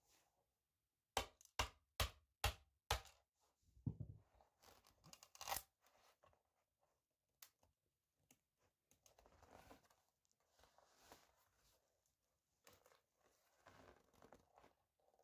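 Philips tower speaker's plastic top cap being pried apart by hand: five sharp cracks in quick succession, then a tearing crunch, then fainter scraping as the cap is worked loose.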